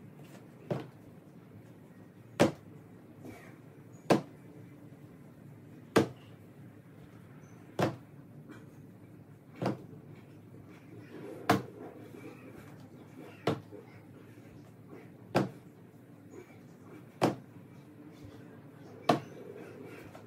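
A plastic laundry-detergent jug, used as a hand weight, set down on a wooden floor at each repetition: a sharp knock about every two seconds, eleven in all.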